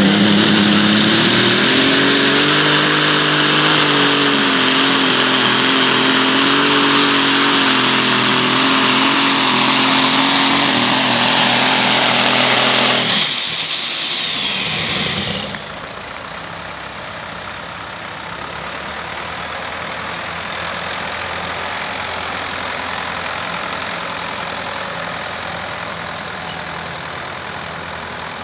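John Deere light super stock pulling tractor's turbocharged diesel engine running at full throttle under load, with a high turbo whine over it. About 13 seconds in the throttle is cut, the turbo whine winds down over about two seconds, and the engine falls to a much quieter idle.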